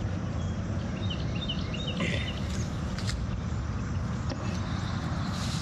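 A bird giving a quick series of about six short, high chirps about a second in, over a steady low rumble outdoors.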